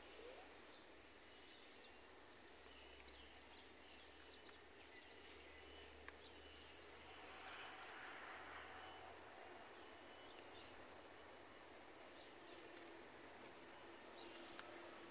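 Faint outdoor ambience: a steady high-pitched insect drone with scattered short faint chirps.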